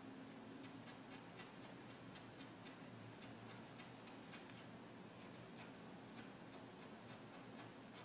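Faint, quick ticks of a Staedtler pigment liner 0.05 fineliner flicking short fur strokes onto paper, irregular at about three a second, over a low steady hum.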